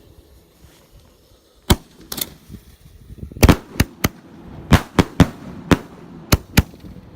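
Firework salutes going off one after another: about a dozen sharp, loud bangs at uneven intervals, starting about a second and a half in.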